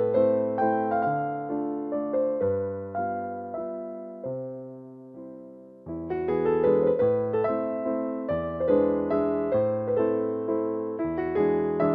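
Background music: a slow, gentle piano melody. It thins out and fades a few seconds in, then comes back fuller just before halfway.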